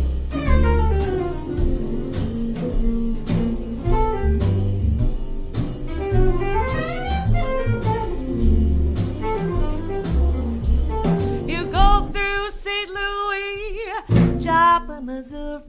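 Jazz band playing an instrumental break: a stepping upright-bass line and drums under a lead melody line. Near the end the bass drops out for about two seconds, leaving the lead line alone.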